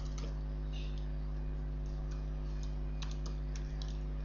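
Computer keyboard being typed on: scattered keystrokes, then a quick run of them about three seconds in, over a steady low hum.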